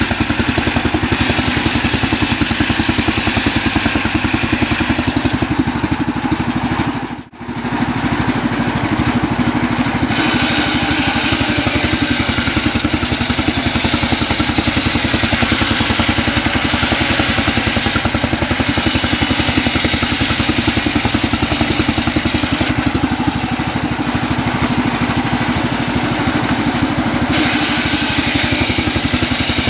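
Homemade engine-driven circular saw running steadily while its blade rips a trembesi (rain tree) log lengthwise into boards. The sound dips sharply for a moment about seven seconds in.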